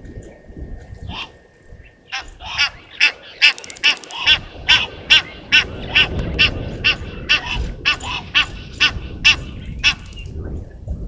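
A rapid series of loud, evenly repeated animal calls, about two and a half a second, starting about two seconds in and lasting some eight seconds.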